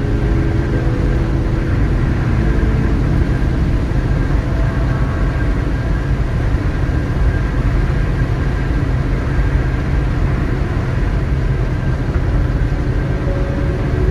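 Steady drone of tyres and engine heard inside a car cabin while driving at highway speed on a toll road.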